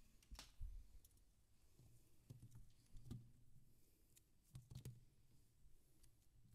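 Near silence: quiet room tone with faint scattered clicks and light knocks, several of them in the first second and a small cluster a little before the five-second mark.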